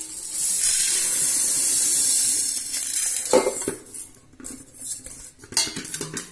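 Dry split urad dal poured from a steel bowl into a small steel cup, a steady rattling hiss of grains for about three seconds. Then a sharp clink and scattered light rattles as a hand works the lentils in the cup.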